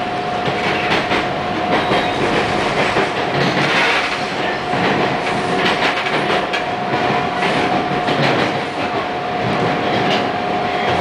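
Bombardier T1 subway train running through a tunnel, heard from inside the car: a steady rumble and rush of wheels on rail with irregular clicks over the track, and a steady whine running under it.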